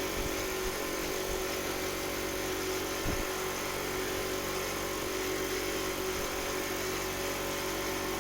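A small motor running steadily with an even hum, cut in and out abruptly.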